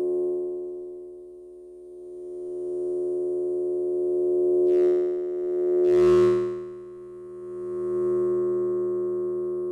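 Synthesized science-fiction drone: a steady hum of one unchanging pitch with many overtones, swelling and fading in slow waves. Two short hissing rushes come about five and six seconds in, the second one the loudest.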